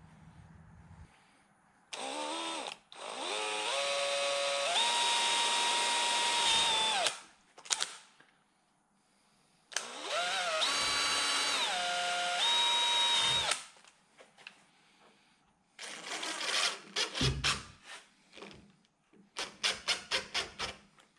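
DeWalt cordless drill driving screws through a plastic electrical box into a wooden stud. There are two long runs of the motor, its whine stepping up in pitch as the trigger is squeezed. Near the end come a series of short, quick bursts of the drill.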